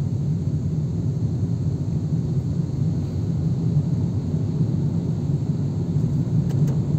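Steady low rumble of a car's engine and road noise inside the cabin.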